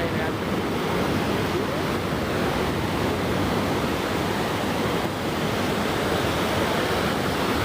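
Ocean surf washing up on a sandy beach: a steady rush of breaking waves.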